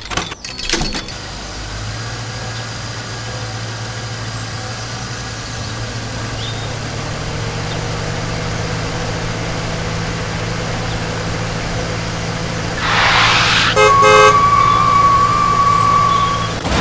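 Cartoon-style construction-machine sound effects. A steady low engine hum runs for most of the stretch. Near the end there is a short whoosh, then a horn-like toot that holds on one high note for a couple of seconds.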